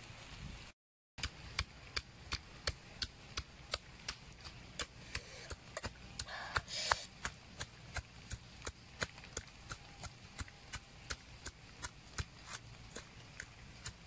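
Pestle pounding red chilies in a coconut-shell mortar: steady sharp knocks, about three a second, with a short scuffing noise a little before halfway. A brief crackle of the wood fire and a moment of dead silence come before the pounding starts.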